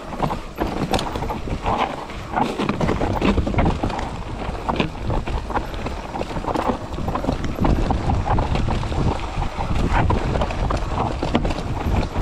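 Enduro mountain bike riding down a rocky trail: tyres rolling over rock and pine needles, with the bike rattling and knocking in irregular clicks and thuds over the bumps.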